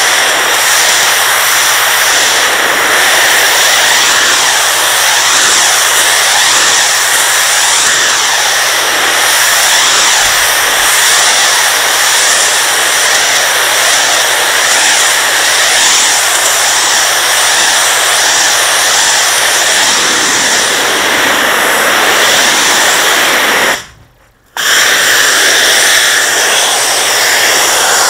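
Pressure washer's high-pressure water jet blasting porcelain patio slabs, a loud steady hiss of spray on stone. It cuts out for under a second near the end, then resumes.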